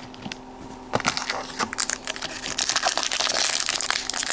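Foil wrapper of a Pokémon XY booster pack crinkling and crackling as it is taken from the box and handled, starting about a second in.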